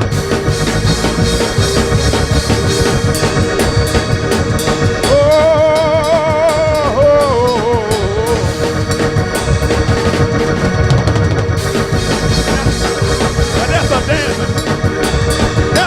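Live gospel-style music: organ and drum kit playing with a steady beat, with a wavering held note, from a voice or the organ, rising above the band about five seconds in for around three seconds.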